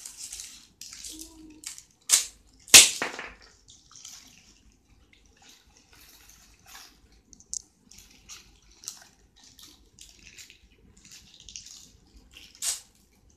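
Plastic toy packaging crinkling and rustling as it is handled, with two sharp, loud crackles about two seconds in and another near the end.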